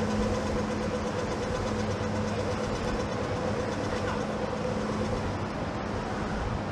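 Steady mechanical drone: a constant low hum with a higher steady tone above it, over an even rumble.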